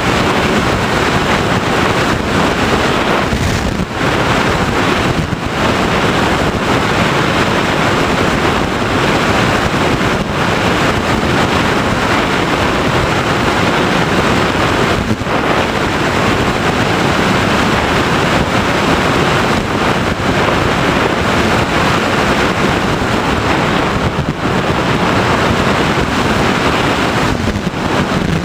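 Loud, steady rush of airflow buffeting the onboard camera microphone of an FPV Raptor RC plane in flight, with a few brief dips in the noise.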